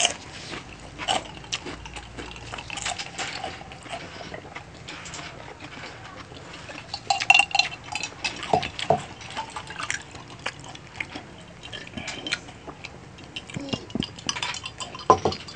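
Close-up wet eating sounds: chewing, sucking and lip-smacking on sticky sauce-coated adobo chicken feet, with many short irregular clicks and smacks.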